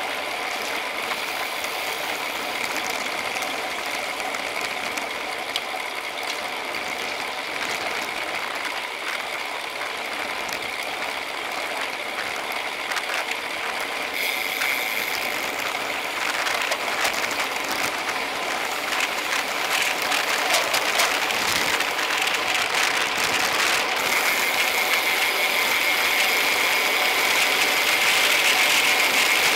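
Road bicycles riding in a tight pack: steady wind and tyre noise with rapid ratchet-like ticking of freehubs and drivetrain clicks, growing louder in the second half.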